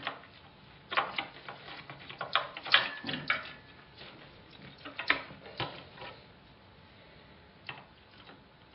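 A series of sharp plastic clicks and knocks as a RAM module is pressed into the motherboard's memory slot, with the clicks bunched about one second in and between two and a half and three and a half seconds in. The slot's retaining latches snap shut: it has clicked into place.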